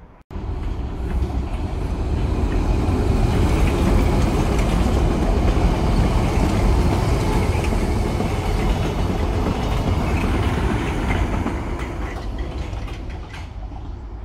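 London Underground Piccadilly line 1973 Stock tube train running through the station on the centre track without stopping. The noise comes in sharply about half a second in, is loudest through the middle and fades over the last few seconds as the train moves away.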